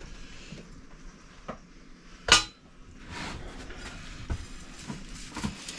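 Kitchen utensils clinking and knocking against a plate, pot and cutting board as food is served and the steak is set up for carving, with one sharp clink a little over two seconds in and a few lighter knocks around it.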